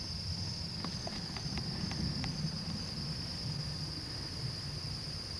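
Steady, high-pitched chorus of insects shrilling without a break, with a low rumble underneath and a few faint clicks between one and two seconds in.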